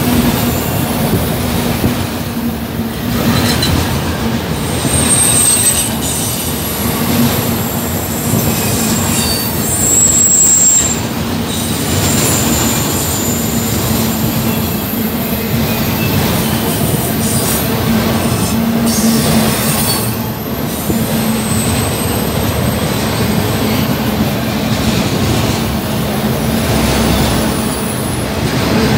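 Freight train of autorack cars rolling past close at speed: a steady rumble of steel wheels on rail with a constant low hum and short, high wheel squeals now and then.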